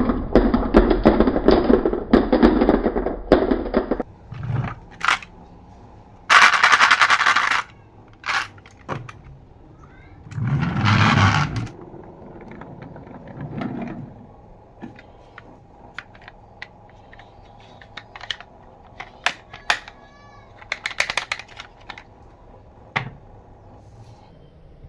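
Glass marbles rolling and clattering through a wooden and plastic marble run. A dense rattle of many marbles lasts about four seconds, then gives way to scattered clicks and short bursts of rolling as single marbles drop and run down the track pieces.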